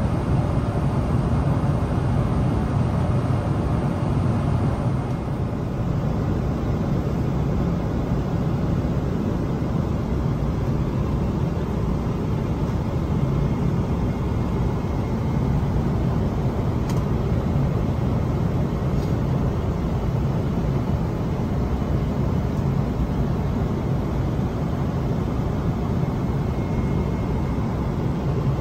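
Steady in-flight cabin noise inside a Boeing 777-300ER: an even, low rush of airflow and engine noise that holds constant throughout.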